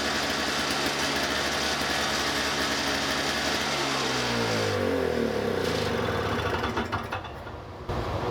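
Toro single-stage 6.5 hp two-stroke snowblower engine running steadily on its first run after a carburetor clean, fresh plug and fresh fuel. About four seconds in its pitch falls as it winds down, and it stops about seven seconds in. A steady hum starts again shortly before the end.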